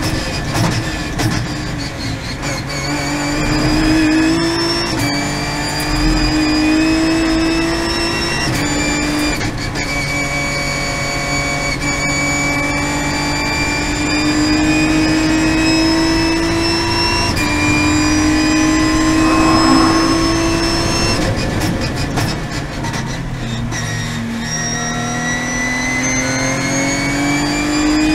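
Ginetta G55 GT4's 3.7-litre V6 race engine heard from inside the cockpit at racing speed. The engine note climbs and falls through the gears, with several sudden jumps in pitch at the gear changes.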